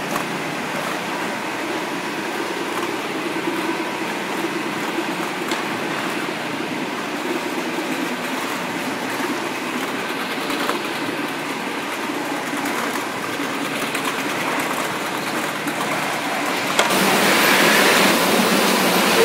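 Steady mechanical noise of a running tomato sorting and packing line, with conveyors carrying the tomatoes. It gets abruptly louder near the end.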